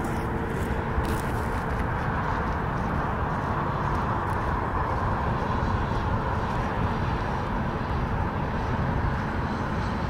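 Steady rushing background noise at an even level, with no distinct events.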